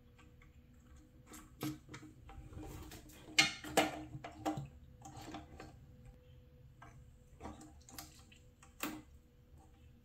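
Scattered plastic clicks and knocks as the cap and rubber seal of a toilet tank fill valve are handled and fitted back onto the valve, with a cluster of louder knocks about three and a half to four and a half seconds in.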